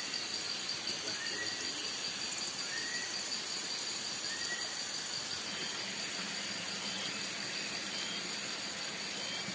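Evening forest insect chorus: a steady high-pitched buzzing, with a short chirping call repeated about every second and a half. A faint low hum joins about six seconds in.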